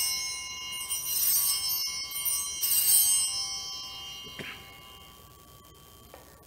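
Altar (sanctus) bells rung three times, their bright cluster of high tones ringing on and fading away over several seconds. They mark the elevation of the chalice after the words of institution.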